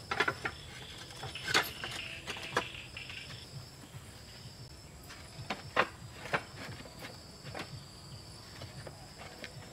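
Several sharp clacks and knocks as roof tiles are pressed into place and a bamboo pole is laid on a small log dog house's tiled roof, over steady high-pitched insect trilling, likely crickets.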